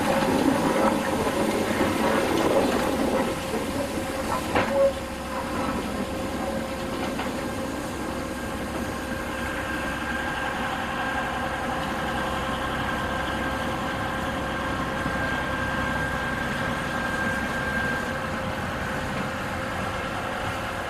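Diesel locomotive engine running steadily at idle in a rail yard, with a sharp knock about four and a half seconds in. A thin, high steady whine joins in about halfway through.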